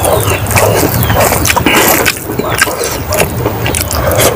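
Close-miked eating sounds: wet chewing and lip-smacking with many quick, irregular clicks as a handful of rice and egg curry is chewed and another is brought to the mouth.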